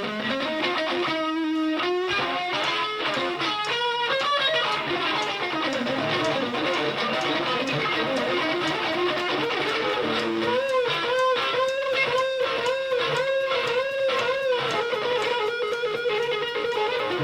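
Jazz-funk band playing live, led by an electric guitar solo: quick runs of notes, then from about ten seconds in long held notes with a wide, wavering vibrato.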